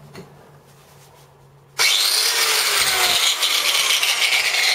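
Four-inch (100 mm) Bosch angle grinder with a cutting disc, switched on about two seconds in and running loud and steady.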